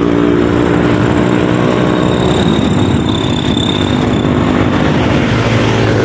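Small motorcycle engine running in road traffic, its pitch dipping and rising again about two and a half seconds in.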